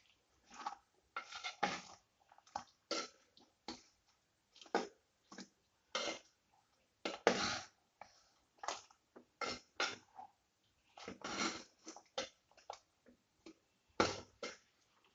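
Steel spoon stirring thick chicken green masala in an earthenware pot: a string of short, irregular wet squelches and scrapes against the clay, with the loudest strokes about halfway through and near the end.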